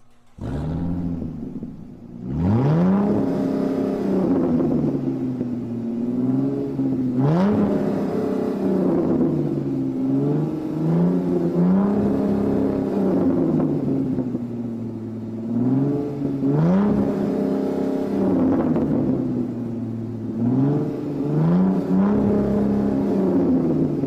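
A car engine revving repeatedly. Its pitch climbs and falls back about half a dozen times, starting a couple of seconds in.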